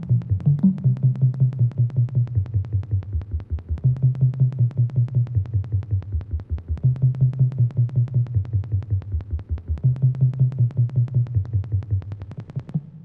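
Electronic YTPMV remix music built from a chopped, sampled FaceTime calling sound, with fast evenly repeating stuttering pulses over a low pitched bass line. It stops near the end, leaving a brief low decay.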